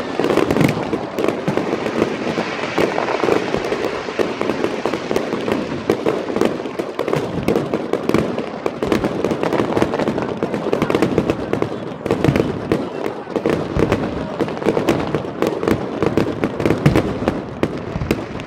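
Fireworks display going off without pause: many rapid, overlapping bangs and pops from aerial shells and ground fountains.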